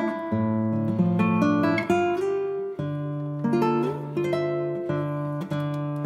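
Background music: an acoustic guitar picking a run of separate plucked notes over held bass notes.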